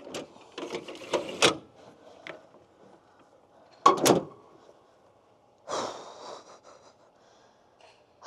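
A pickup's sliding bed tray pushed in, rattling and clattering for about a second and a half; then, about four seconds in, the Ford tailgate slammed shut, a sharp double bang and the loudest sound here. A shorter rattle follows near six seconds.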